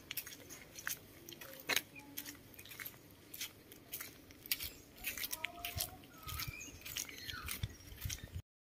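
Soft scattered clicks and rustles of handling close to the microphone as two baby monkeys shift and cling on a man's arm, with a few faint short squeaks about five to seven seconds in.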